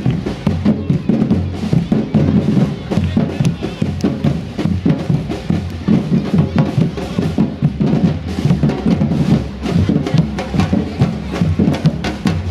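A drum band playing a fast, steady rhythm on large bass drums struck with mallets and sticks.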